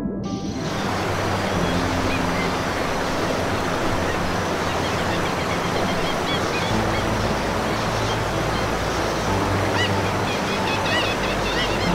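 A steady rush of water like surf, with short high bird calls that come thickest near the end, over soft background music.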